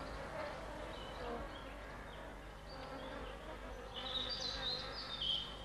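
Insects buzzing in a steady drone, with a cluster of high chirps about four seconds in.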